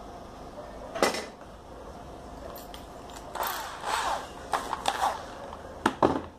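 Wooden jig pieces being handled and set down on a wooden workbench: a sharp knock about a second in, a stretch of scraping and clatter in the middle, and two quick sharp clacks near the end.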